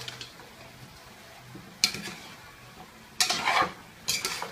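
Spatula scraping and knocking against a stainless steel pot while chopped turkey is stirred, over a faint sizzle: one sharp knock about two seconds in, then two longer scrapes near the end.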